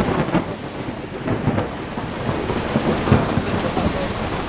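Heavy downpour with thunder rumbling through it, the tail of a close lightning crack that comes just before; the low rumble swells again about a second and a half in and around three seconds in.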